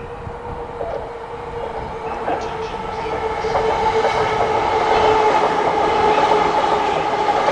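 A JR Yamanote Line E235-series electric commuter train runs past close by, growing louder as it nears. It gives a steady hum with a few clicks of wheels over the rails.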